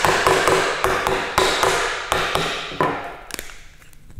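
A hammer striking a dry-fitted timber cross halving joint on the bench edge, about three sharp knocks a second, each with a short woody ring, stopping about three seconds in. The unglued joint holds together under the blows.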